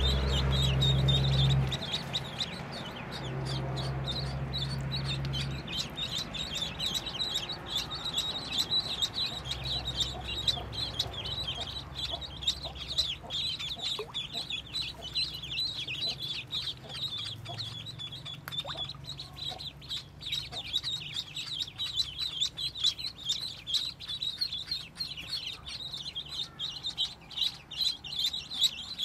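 A crowd of ducklings peeping rapidly and continuously, many short high peeps overlapping. A low steady hum sounds in the first dozen seconds, switching on and off a few times, loudest right at the start.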